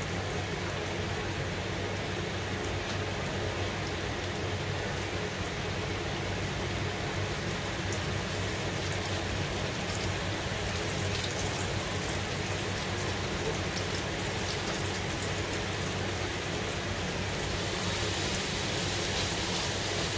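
Almond-flour-battered chicken breast deep-frying in a skillet of hot oil: a steady sizzle with many small pops. It grows a little louder and brighter near the end.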